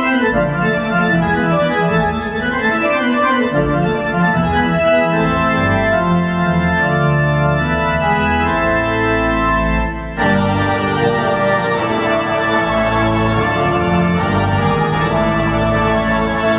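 Live solo keyboard music from Korg Nautilus workstation keyboards with an organ-like voice: sustained chords over moving low notes. About ten seconds in the sound dips briefly and returns brighter and fuller.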